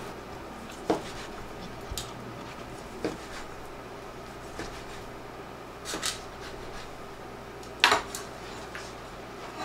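Kitchen knife slicing through grilled chicken breast and knocking on a plastic cutting board, about five separate sharp taps spread out, the loudest near the end.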